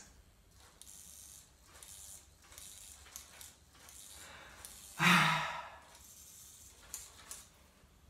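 Toy butterfly's wing mechanism whirring and rattling faintly as it flaps. About five seconds in, a man's voice makes one brief hum-like sound, and there are a couple of small clicks near the end.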